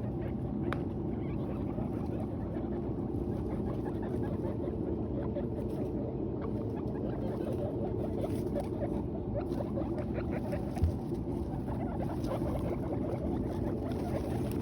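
Guinea pigs chewing hay: many small, quick crunching clicks over a steady low hum, with one short thump about eleven seconds in.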